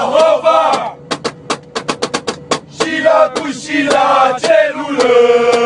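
Music: a voice singing over sharp, fast percussion hits. Near the end the voice holds one long note.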